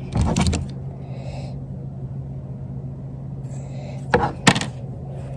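Hands handling fishing line and a plastic jug over a diamond-plate truck toolbox: a short rustle and clicks at the start, then two sharp knocks about four seconds in, over a steady low hum.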